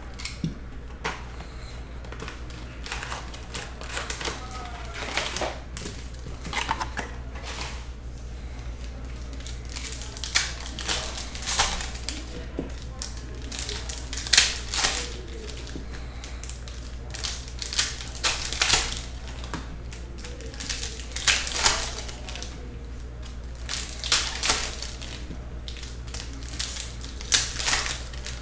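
Foil 2021-22 Upper Deck Artifacts hockey card packs being opened and the cards shuffled by hand, giving irregular sharp crinkles and rustles, over a steady low hum.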